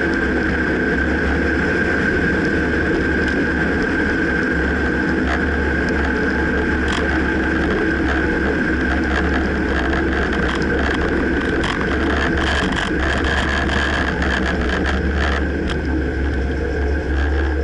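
2009 Dodge Ram running with a steady low rumble and a steady high tone, over which come scattered short knocks, many of them in the second half. This is the clunking noise whose source the owner can't pinpoint.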